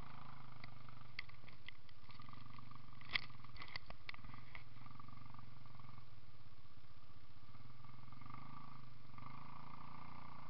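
ATV engine idling steadily, with a few light clicks and one sharp knock about three seconds in.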